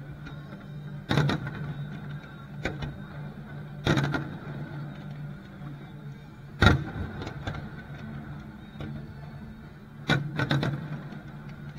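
Aerial firework shells bursting: sharp booms about a second in, near four seconds, a loud one near seven seconds and a cluster around ten seconds, each followed by a few quicker pops, over a steady low hum.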